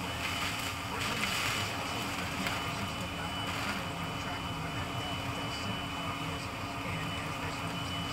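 Hurricane wind blowing hard and unbroken, a steady rushing noise with wavering low tones beneath it.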